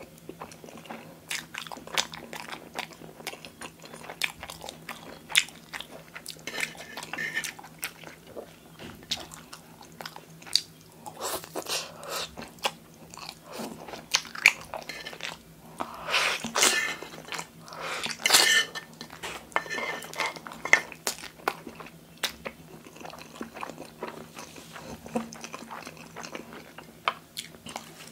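Close-miked eating of fettuccine in cream sauce: wet chewing with many sharp mouth clicks and smacks. In the middle stretch come several longer, louder noisy sounds of noodles being slurped in.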